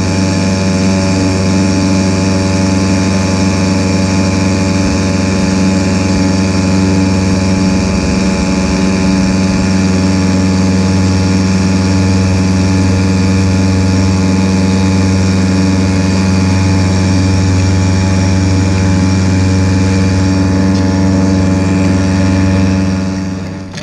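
Small outboard motor on a fishing kayak running steadily at constant speed, dropping away near the end.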